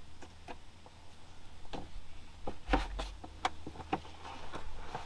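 Irregular light clicks and knocks of hand tools and metal parts being handled, with a dull thump about halfway through.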